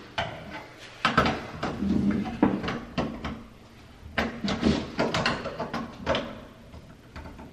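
Locknut of a cable strain-relief connector being tightened with a screwdriver against the top of a metal breaker panel: irregular metallic clicks, knocks and scrapes.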